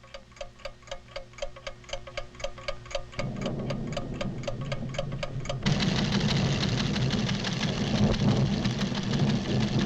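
Cartoon sound effect of a scientific recording instrument ticking rapidly, about four ticks a second, each with a short pitched beep. A low rumble joins about three seconds in, and about halfway through loud orchestral music swells in over it.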